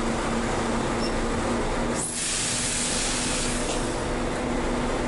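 Volvo B12M bus's six-cylinder diesel engine running steadily at low speed in slow traffic, heard from the driver's cab. About two seconds in, a sudden hiss of compressed air from the bus's pneumatic system lasts under two seconds.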